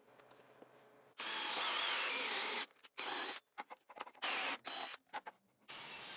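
Workshop tool noise, likely a power tool or abrasive work, in short stretches that start and stop abruptly: a longer run with a wavering whine, then a series of brief bursts.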